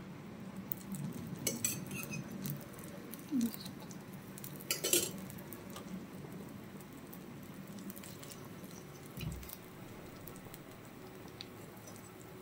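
A few scattered light clinks of a steel spoon against metal cookware, over a faint steady hiss of dosa batter cooking on a hot tawa.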